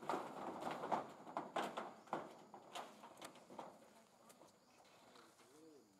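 Long-tailed macaques scuffling and wrestling: a harsh, noisy burst in the first second, then scattered scrabbles and knocks. A few faint rising-and-falling calls come near the end.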